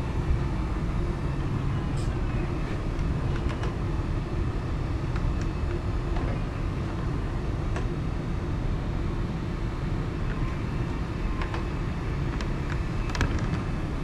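Yale NR035A3 electric stand-up reach truck driving and turning: a steady low rumble with a faint motor hum and a few sharp clicks.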